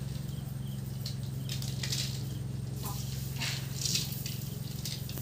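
Hands stirring and scooping through a heap of sprouted rice seed on a plastic sheet: grainy rustling in irregular bursts, over a steady low hum.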